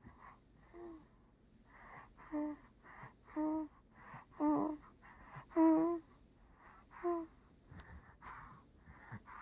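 A sleeping baby breathing noisily, with a short wheezy squeak on each breath about once a second.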